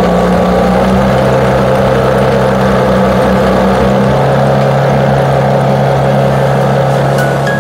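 Mercury 3.3 hp outboard motor running steadily, its pitch shifting slightly a couple of times.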